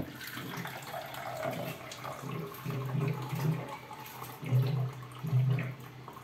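Liquid poured into a cooking pot, the flow coming in louder surges in the second half.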